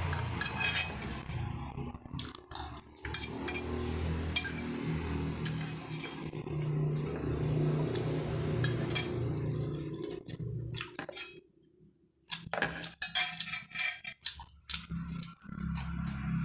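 Cutlery clinking and scraping against a plate during eating: irregular sharp clinks scattered throughout, with a brief pause about two-thirds of the way through.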